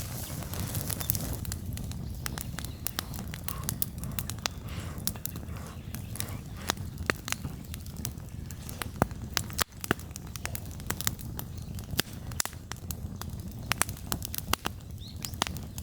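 Wood bonfire crackling, with sharp pops scattered irregularly over a low steady rumble.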